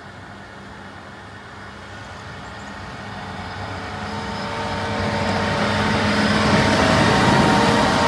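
Diesel engine of a John Deere motor grader running steadily as it approaches, growing louder all the way and loudest near the end as it passes close.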